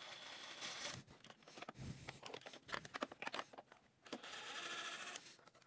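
Faint whirr of a DeWalt cordless driver spinning screws out of a plastic body panel, in two short runs: one up to about a second in, one around four seconds in. Scattered clicks and taps of handling come between them.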